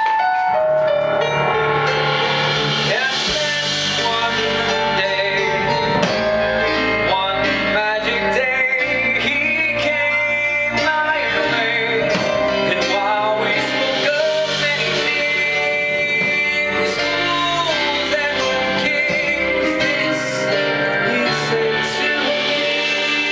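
Live band music with no spoken words: an instrumental passage, with wordless singing at times.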